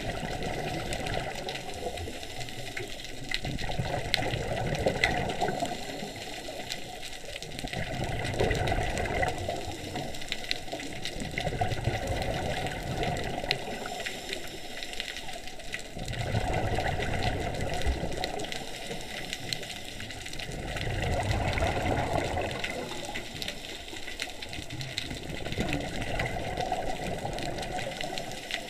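Scuba diver breathing through a regulator underwater: bursts of exhaled bubbles swell and fade about every four to five seconds.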